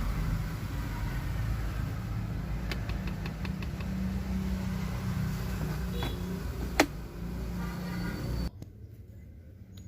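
Low road and engine rumble inside a moving Toyota Veloz's cabin, with a quick run of about seven light rattles around three seconds in and one sharp click near seven seconds: the glove box rattling. The rumble drops away suddenly near the end.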